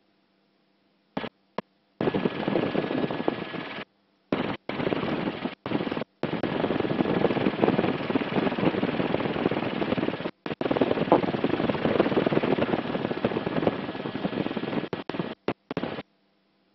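Helicopter cabin noise: a dense, rapid rotor chatter with engine noise. It cuts out abruptly to silence for about a second at the start and several more times for brief moments.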